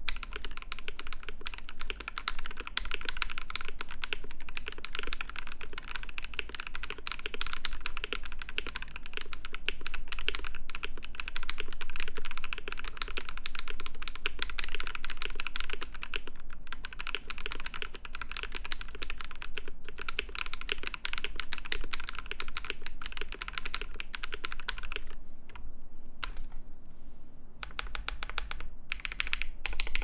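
Akko CS Matcha Green tactile mechanical switches, lubed with Krytox 205g0, in a KBD67 Lite with a polycarbonate plate and GMK ABS keycaps, typed on quickly and continuously. After about 25 seconds the typing stops briefly, then a few keys are pressed one at a time.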